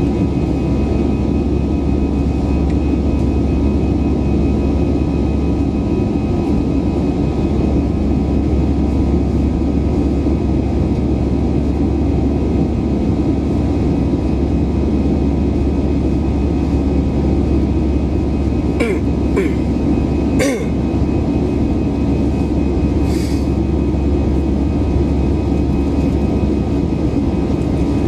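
Airbus A320 jet engine and airflow noise as heard in the cabin: a steady, loud rumble with faint steady tones, unchanging throughout. A few brief clicks come about two-thirds of the way through.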